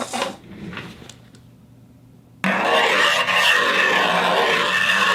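A few light handling clicks, then about two and a half seconds in a turntable starts running with a sudden, loud, steady rubbing noise over a low hum.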